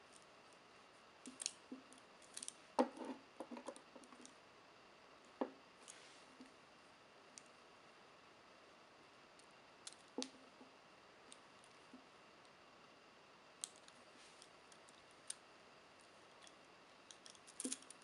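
Steel chain handcuffs clinking as the cuffed wrists shift: light, scattered metal clicks and rattles from the chain links and cuffs, busiest a few seconds in and again near the end.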